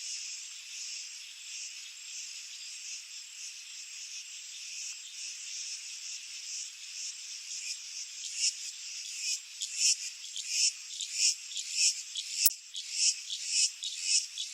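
A steady high buzzing chorus of calling animals, joined about eight seconds in by a rhythmic pulsed call, roughly one to two pulses a second, that grows louder. A single sharp click near the end.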